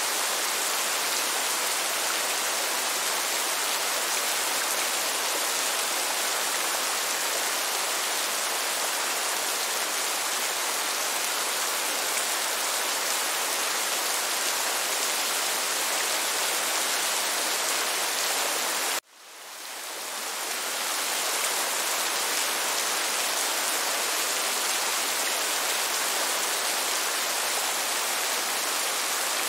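Steady heavy rain falling, an even hiss. About two-thirds of the way through, the sound cuts out abruptly and fades back in over a second or two.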